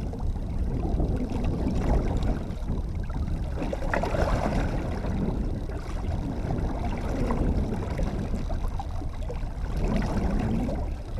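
Fishing boat under way at trolling speed: a steady low drone of the motor with water washing along the hull.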